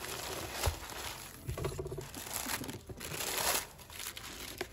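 Packaging crinkling and rustling in irregular bursts as hands handle it to get at the palette box, with a few light knocks.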